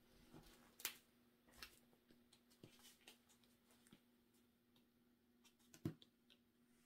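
Near silence: room tone with a faint steady hum and a few soft clicks, the two clearest about a second in and near the end.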